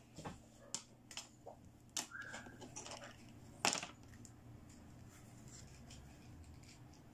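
Light plastic clicks and taps from a pink toy stethoscope's tubing and chest piece being handled on a wooden table, with a short squeak about two seconds in and one sharper click a little past halfway.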